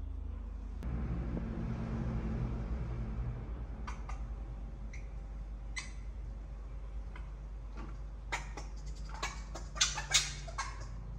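Baby monkey giving short, sharp squeaks, a few at first, then coming thick and fast and louder near the end, over a low steady hum.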